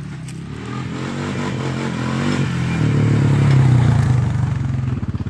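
Small engine of an off-road motor vehicle running out of sight, growing steadily louder to a peak about four seconds in. Near the end it drops into a fast, even pulsing, as at low revs.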